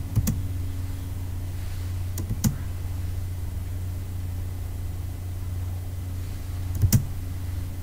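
A steady low electrical hum with a few short, sharp clicks: one just after the start, one about two and a half seconds in, and a quick cluster of two or three near the end.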